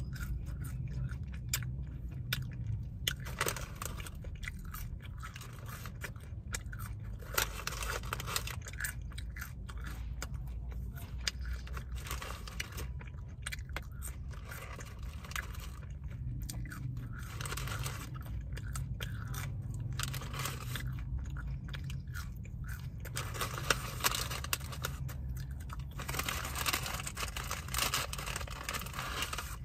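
Close-miked chewing and crunching of McDonald's fries and a burger, with sharp crackles scattered throughout and a denser crackly stretch near the end as the paper wrapper is handled. A steady low hum lies underneath.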